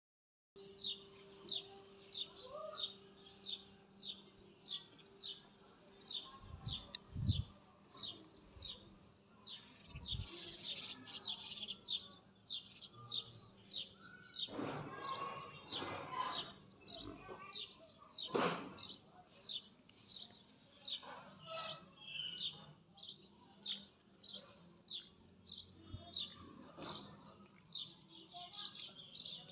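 A bird chirping over and over, short high chirps about twice a second, with a few brief rustling noises around the middle.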